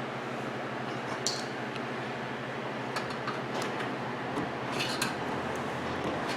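Scattered light clicks and metallic clinks of small parts and tools being handled while a microwave oven is reassembled, over a steady low hum.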